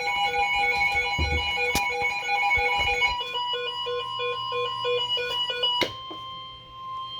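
Emergency Alert System alert tones. About three seconds of the steady two-tone attention signal give way to a run of short, stepping beeps, then one steady tone that fades near the end. Sharp clicks come about two seconds in and at the change to the single tone.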